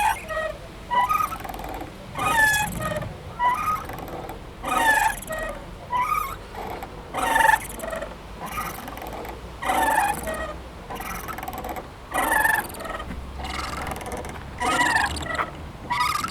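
A playground swing creaking and squeaking rhythmically as it swings back and forth, with a short sliding squeak about every second.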